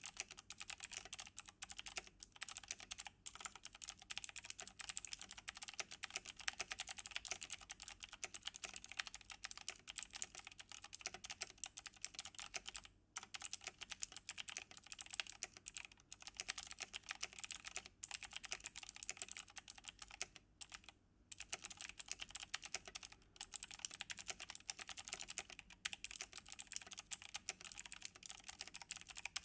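Fast, continuous typing on a Logitech G Pro X mechanical keyboard with clicky Kailh Blue switches: a dense stream of crisp key clicks, with brief pauses about 13 and 21 seconds in.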